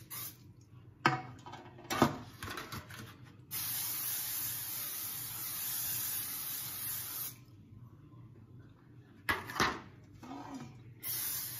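Aerosol non-stick cooking spray hissing into cake pans in several bursts, the longest a steady hiss of about four seconds. A few sharp clunks come between the bursts as the metal and foil pans are handled.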